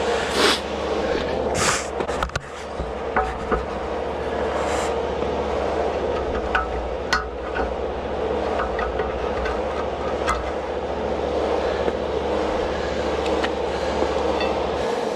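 A motor running steadily with a constant low hum, with scattered sharp metallic clicks and a few short hisses; the hum stops just before the end.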